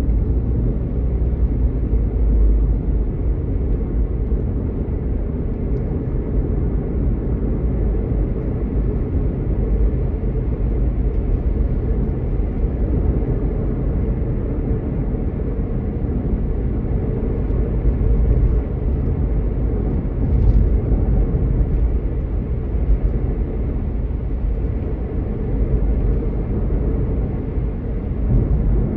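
Steady low rumble of a car driving at road speed, heard from inside the cabin: tyre and road noise with the engine underneath.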